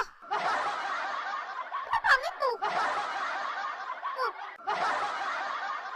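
A crowd laughing, like a recorded audience laugh track, in three bursts with brief gaps. A single voice glides in pitch in the gaps.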